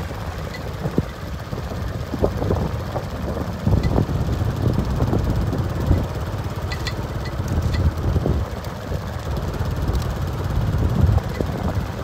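Low, uneven rumble of a vehicle engine with wind buffeting the microphone, and a few scattered knocks.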